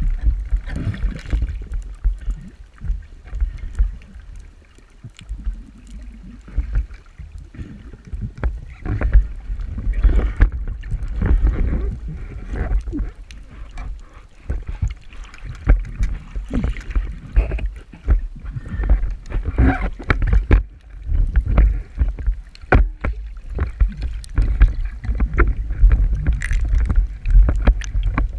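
Sea water sloshing and splashing, with a strong low rumble and many irregular knocks and splashes.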